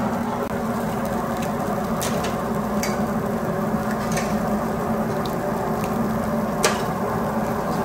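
Dosas sizzling on a flat-top griddle over a steady low hum, with a few sharp taps as eggs are cracked onto a dosa, the loudest near the end.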